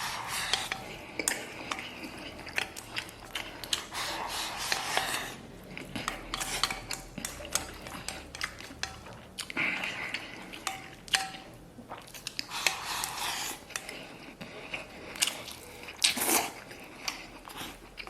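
Eating utensils clicking and scraping against a bowl, with several stirring or scraping passes of about a second each among many sharp clicks.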